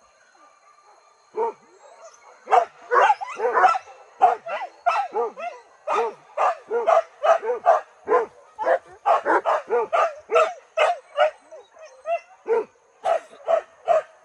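Hunting dogs barking and yelping in quick, overlapping barks that start about a second and a half in and keep on without a break, the sound of the pack on a wild boar.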